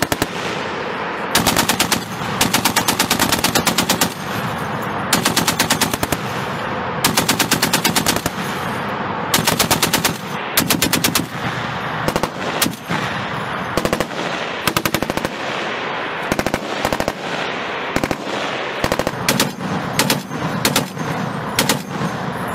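Several tripod-mounted M2 .50-calibre heavy machine guns firing bursts of rapid, evenly spaced shots, often overlapping, with a rolling echo between bursts. The bursts last about a second each at first, then become shorter and more broken toward the end.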